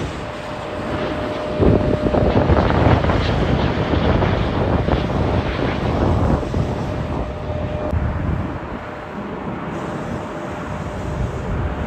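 Jet airliner engines during landing: a steady rumble with a faint steady whine, louder from about two seconds in, with wind buffeting the microphone.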